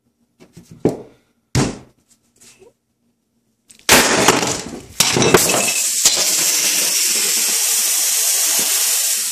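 A few sharp blows smashing a Droid X2 phone. Then its damaged lithium-ion battery bursts and vents with a sudden loud rush, settling into a steady hiss for about four seconds before cutting off.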